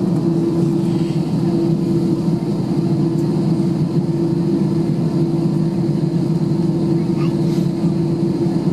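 Airbus A320 cabin noise while taxiing: a steady low drone from the engines at idle, with a constant hum and no change in level.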